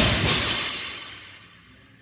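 A weight dropped onto the gym floor: one loud slam that then rattles and rings away, fading over about a second and a half.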